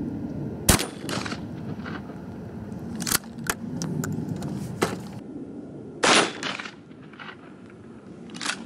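A shotgun fires once about a second in, a single sharp bang, followed by a few smaller sharp knocks. A second loud bang with a longer tail comes about six seconds in.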